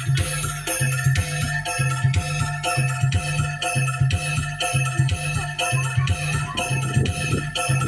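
Music for a bantengan dance: a steady beat with low drum strokes about twice a second and sustained melodic tones held above.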